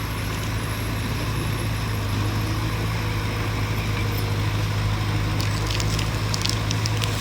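Crawler bulldozer's diesel engine running at a steady speed, with a few sharp cracks and snaps in the second half as debris is pushed.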